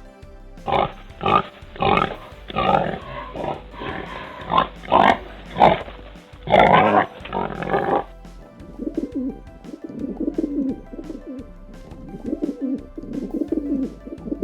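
An animal's loud, short calls repeated every half second or so. About eight seconds in, the clip cuts to a bird's low, soft cooing. Background music with a light steady beat runs throughout.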